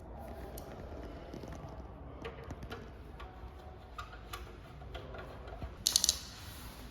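Scattered light clicks and taps, with a louder quick cluster of sharp clicks about six seconds in, over a low steady hum.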